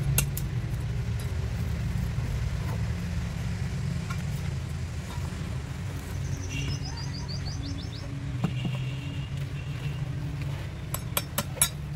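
Steady low engine rumble in the background, with a bird's quick run of descending chirps about midway. A few sharp clacks near the end as stiff plastic mould sections are pulled off a freshly cast cement pot.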